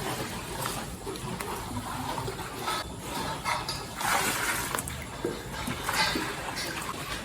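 Cows eating from a feed trough: irregular wet munching and slurping noises.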